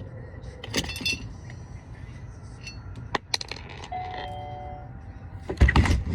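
Small metal parts clinking and ringing briefly, then a few sharp clicks and a short steady tone, ending with a loud cluster of knocks from hardware being handled during a doorbell mounting job.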